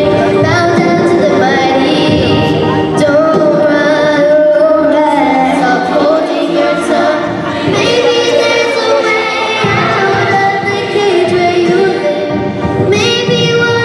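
A young girl singing a song into a microphone over instrumental accompaniment, with long held notes that glide up and down.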